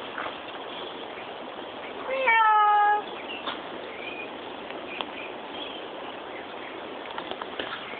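A cat meowing once, a single loud drawn-out meow of about a second that starts about two seconds in and falls in pitch at its end.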